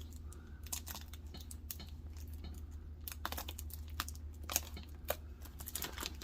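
A mailing package being handled and pulled at by hand to open it: scattered crinkling rustles and small sharp snaps of the wrapping, over a steady low hum.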